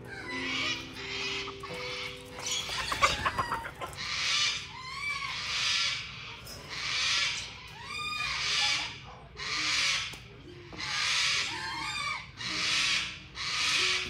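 Farm poultry calling in a steady series of harsh calls, about one a second. A short burst of rattling knocks comes about three seconds in.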